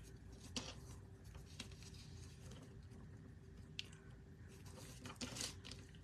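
Faint rustling and a few light clicks as a satin ribbon is handled and wrapped around a paper card, over a steady low hum.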